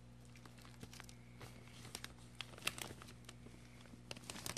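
Faint crinkling of a plastic zip-top bag and rustling of peat moss as a gloved hand pulls a sprouted chestnut seedling out of it. The crackles grow busier from about two seconds in, over a steady low hum.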